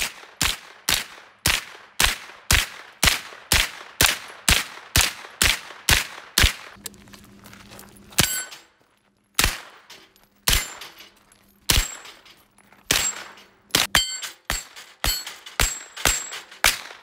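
Diamondback DB9R 9mm pistol-calibre carbine fired in rapid single shots, about two to three a second. The firing pauses briefly about seven seconds in, then a second string of shots follows, spaced unevenly at first and quickening near the end.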